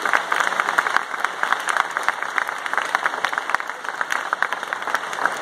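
Audience applauding: a steady round of dense clapping from many hands.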